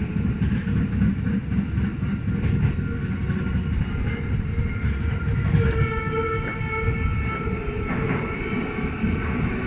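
Tokyo Metro Hibiya Line subway train running through a curving tunnel, a steady rumble of wheels on rail. About six seconds in, high steady squealing tones from the wheels on the curve join in for about three seconds.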